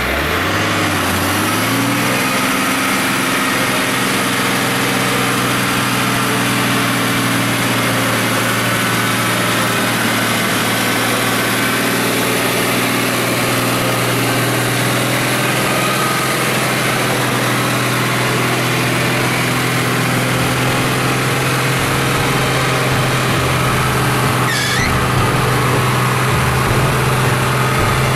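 Old flat-fender jeep's engine running at a steady, low speed, picking up slightly in the first couple of seconds and then holding even, as the jeep works slowly through deep mud ruts.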